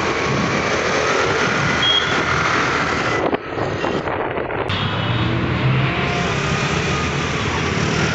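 Busy road traffic: car and motorbike engines running over steady road noise, with a brief dip in level a little over three seconds in.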